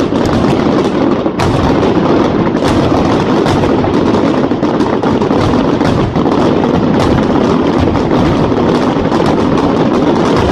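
A dense barrage of fireworks: rapid bangs and crackles running together into a continuous loud rumble.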